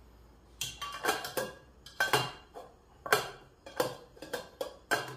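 Aluminium camping pot and lid clanking: about eight sharp, ringing metal knocks as the lid is handled and set on the pot.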